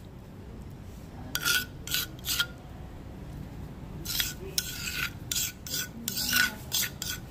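Rasping scrapes of a utensil against a dish, about a dozen short strokes in uneven groups, the first three after a quiet first second.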